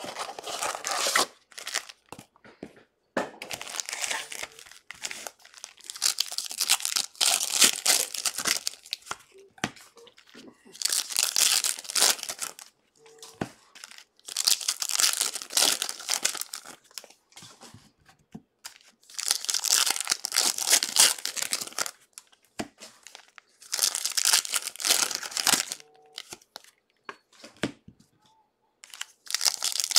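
Foil wrappers of Panini Absolute football card packs being torn open and crinkled by hand, in repeated bursts of one to three seconds with short pauses between.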